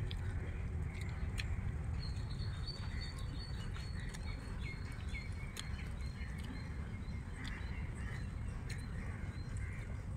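Outdoor ambience with a steady low rumble, a small bird chirping in short high calls for a few seconds starting about two seconds in, and scattered faint clicks and taps of hands mixing and eating food on banana leaves.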